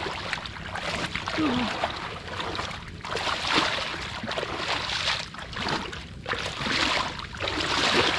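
Shallow water sloshing and splashing in repeated surges, roughly one a second, as someone wades or gropes with their hands in a flooded field.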